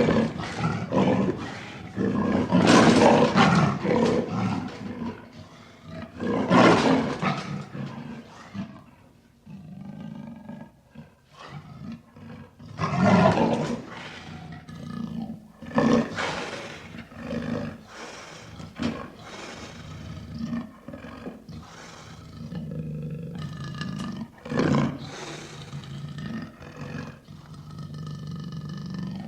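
Tiger roar sound effects: a series of deep, loud roars, the longest at the start, with lower rumbling growls between them.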